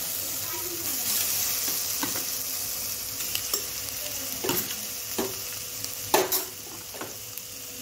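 Marinated fish pieces sizzling as they hit a hot, dry non-stick kadai with no oil, with a few sharp clinks and knocks of a slotted metal spoon against the pan as more pieces are laid in.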